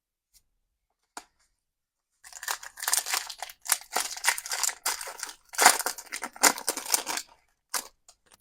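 Foil wrapper of a Pokémon card booster pack crinkling and tearing as it is handled and opened. A dense crackling starts about two seconds in and goes on for about five seconds, with two short clicks near the end.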